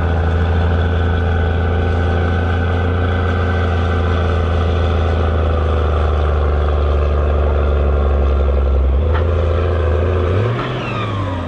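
Case IH Magnum 7230 tractor's six-cylinder turbodiesel engine running hard under full load, pulling a heavy sledge, with a steady drone. The engine note drops about nine seconds in, and near the end the revs rise and fall once as the pull comes to an end.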